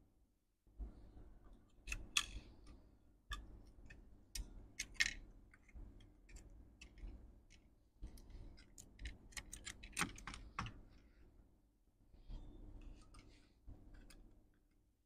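Faint, irregular light clicks and taps of small laptop parts being handled inside an opened MacBook Pro, flex-cable connectors being pressed onto the logic board. The clicks come in loose clusters, the sharpest about two, five and ten seconds in.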